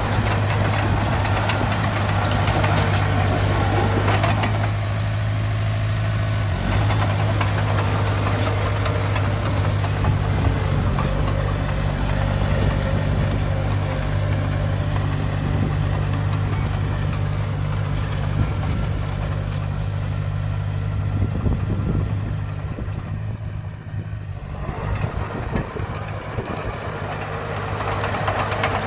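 Heavy diesel engine of construction machinery running steadily at low revs, with a few sharp clanks. The sound thins out briefly a little after two-thirds of the way through, then picks up again.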